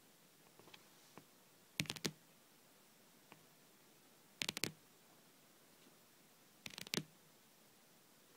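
Long polished fingernails tapping on a table in quick rolls of several taps, three rolls about two and a half seconds apart, with a few faint single taps between.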